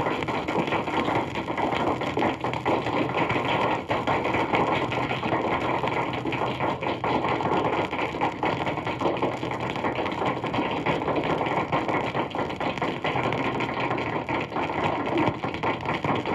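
Recorded crowd applause played from a 78 rpm sound-effects record: dense, steady clapping with no break.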